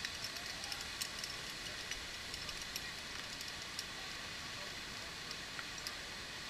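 Steady hiss of light rain, with scattered drops ticking irregularly on an umbrella fabric overhead.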